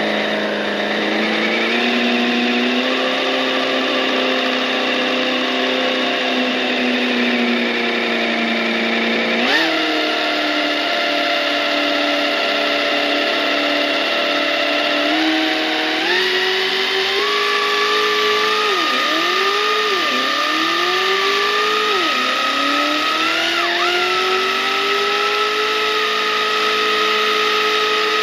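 Radio-controlled HQ Monaro model car running flat out in a burnout, held back by a chain: a steady high-revving motor note whose pitch climbs and falls with the throttle. It jumps up and drops back sharply a few times midway, with three quick dips and recoveries, then climbs and holds high.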